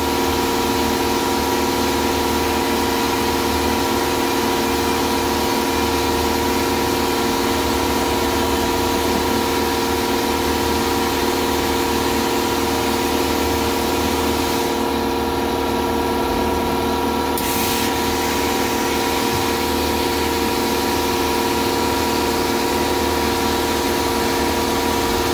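Vapor blasting: the steady hiss of a compressed-air and water-slurry jet from a 3D-printed blast gun with a ceramic nozzle, working over a part inside a stainless blast cabinet, with a steady machine hum underneath. The highest part of the hiss thins for two or three seconds about fifteen seconds in, then comes back suddenly.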